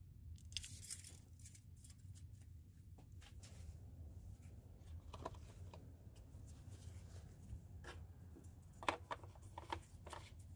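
Faint clicks and short scrapes of under-hood handling: the engine dipstick being pushed back into its tube and the oil filler cap being refitted. A low steady hum runs underneath, and the clearest click comes near the end.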